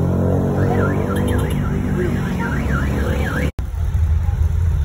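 A warbling electronic alarm, its tone sweeping rapidly up and down several times a second for about two and a half seconds, over the steady low rumble of street traffic and the vehicle's engine. It stops at a sudden cut, and only the low rumble follows.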